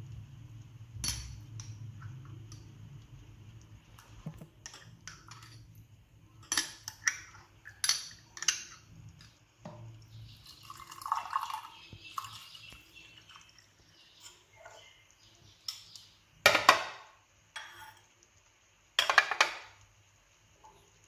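Spoon clinking against a glass and a jar, with water poured from a plastic bottle into a wine glass for a few seconds about ten seconds in. Louder knocks near the end come as the glass and dishes are set down.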